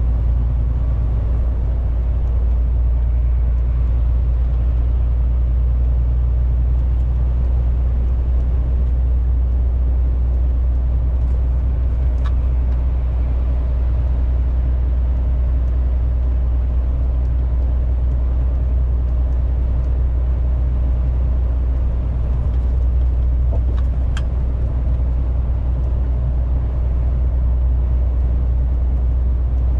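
Steady low drone of a MAN TGX 470 truck at motorway cruising speed, heard inside the cab: its 12.4-litre six-cylinder diesel engine and tyre and road noise, with a couple of faint ticks.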